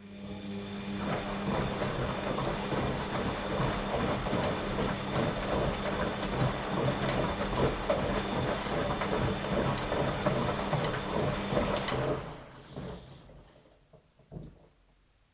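Washing machine motor turning the drum: it starts abruptly, settles into a steady hum with a busy tumbling, rattling texture, and winds down about twelve seconds in, as in the turn-and-pause rhythm of a wash phase. A couple of small knocks follow near the end.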